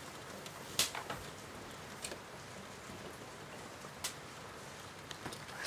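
A faint, steady hiss, with a few light clicks and knocks from camping gear being handled: about one a second in, one near the middle and one past halfway.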